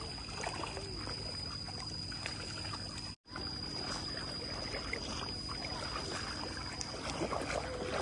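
Feet wading and sloshing through ankle-deep water and clay mud in a flooded rice paddy, with light splashing and trickling and a thin steady high tone behind. The sound drops out for an instant about three seconds in.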